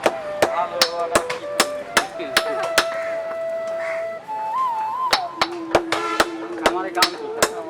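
Hammer blows ringing on iron at the anvil as a weeder blade is forged, about two a second with a short lull in the middle. Background music with a held, wavering tune plays under the strikes.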